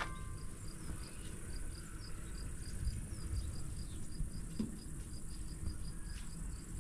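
A cricket chirping steadily, about four short high chirps a second, over a low steady rumble.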